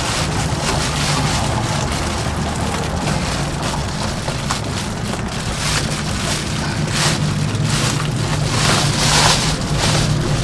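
Reflective foil bubble-wrap insulation crinkling and rustling as it is pushed and pressed into a van's wall cavity, in uneven crackles that grow louder near the end, over a steady low hum.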